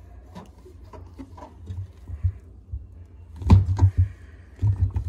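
Rubber door seal of a Samsung front-loading washing machine being pulled back and handled by hand: rustling and soft knocks over a low rumble, loudest a little past halfway.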